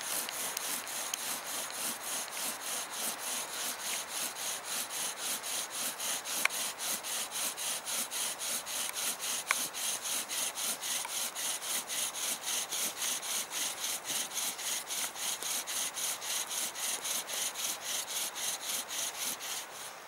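Bow drill at work: a carved wooden spindle grinding in a wooden hearth board as the bow is drawn back and forth, an even rasping in fast regular strokes, with two sharp clicks along the way. The friction is meant to heat the wood to an ember. The rasping stops abruptly at the very end.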